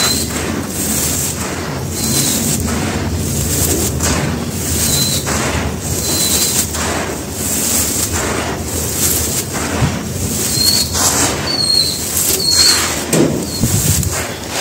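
Hands crunching and crumbling dry crushed stone and grey powder, scooping handfuls and letting the grit pour back down. It is a continuous gritty crunch and hiss that swells with each handful.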